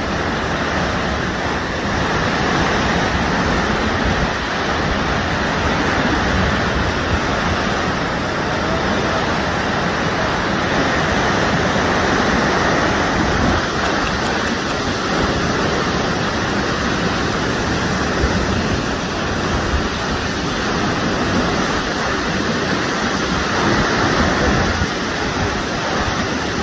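Muddy flood water rushing fast and turbulently through an open channel: a steady, dense rush of churning water.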